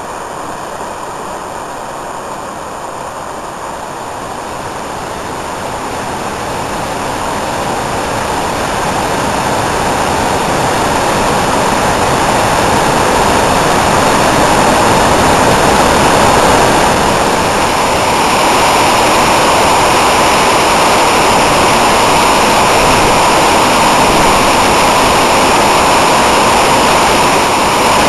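Small waterfall pouring over rock ledges into a pool, making a steady rushing noise that grows louder over the first half and then holds level.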